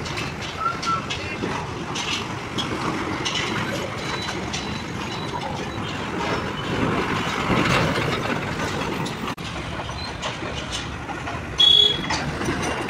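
Heavy diesel trucks passing on a road, a steady noise of engines and tyres that swells as one goes by a little past halfway. A short, loud, high-pitched beep near the end.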